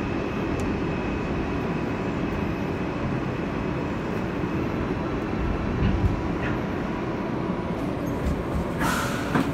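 Interior of an R160A Alstom subway car running slowly into a terminal station: a steady rumble of wheels and running gear with a faint, thin whine. A short hiss comes about nine seconds in, as the train comes to a stop.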